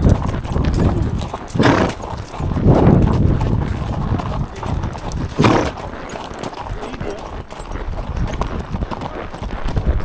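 Hooves of ridden horses clopping steadily, with a few short, louder rushes of noise in the first half.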